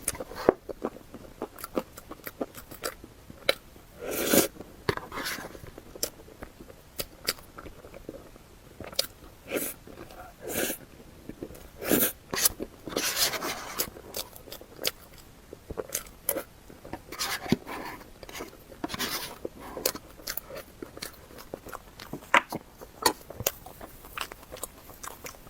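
Close-miked eating sounds: a person biting and chewing food, with many short sharp mouth clicks and a few longer, noisier bites.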